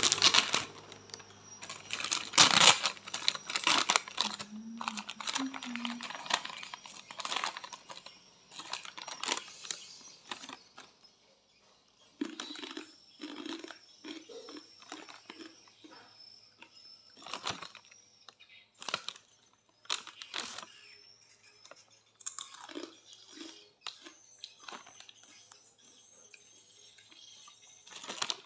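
A plastic snack packet crinkling and rustling, then crunching as Bon Cabe fried macaroni snack is bitten and chewed, in scattered sharp crunches with a few short low vocal sounds between bites.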